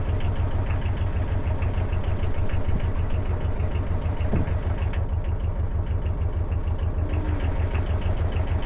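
A narrowboat's inboard engine running steadily at low cruising speed, with an even, low pulsing throb.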